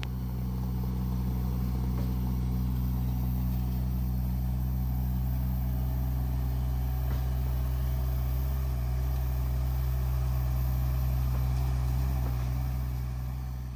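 Rhino XN20 mini excavator's engine running steadily with a low, even hum as the machine carries and shifts a heavy tree stump, fading out near the end.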